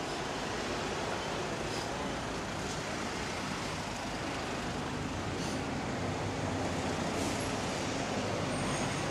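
Steady road traffic noise, with a car engine running close by.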